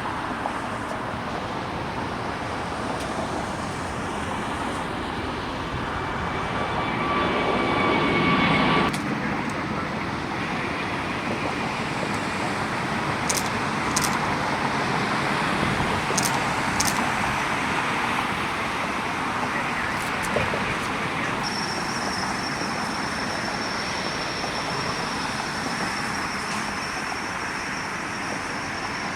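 Jet airliner engine noise: a steady rushing sound with a whining tone. It swells for a few seconds and cuts off abruptly about nine seconds in, then steady engine noise goes on, with a high thin whine joining about two-thirds of the way through.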